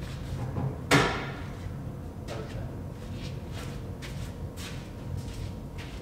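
Chevrolet Silverado rear crew-cab door being worked on its hinges: one sharp metallic clank with a short ringing tail about a second in, then a run of lighter knocks and clicks.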